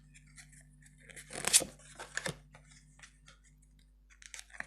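Tarot cards being handled: a few short papery rustles and slaps, the loudest about one and a half seconds in, over a faint steady hum.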